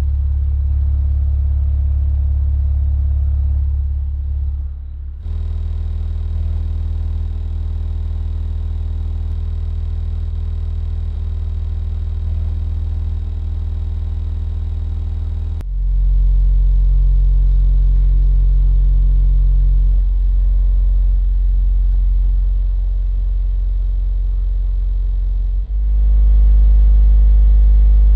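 A pair of Audiomobile EVO 10-inch shallow-mount car subwoofers playing steady sine test tones at about 128 to 130 dB SPL inside a pickup cab. The tone steps up from 35 Hz through 40 and 45 to 50 Hz, switching abruptly about 5, 16 and 26 seconds in.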